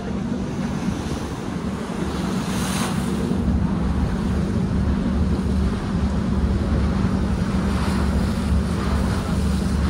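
Ferry's engine running with a steady low hum under the hiss of water along the hull and wind on the microphone.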